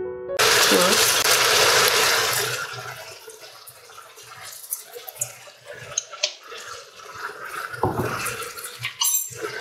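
Chopped leeks sizzling in hot olive oil in a pressure cooker pot. The hiss is loud for the first couple of seconds, then dies down, with a few clicks and knocks later on.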